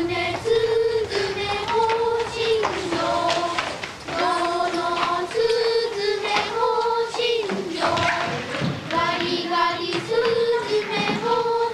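Children's voices singing a simple song in unison, held notes repeating the same short phrase over and over.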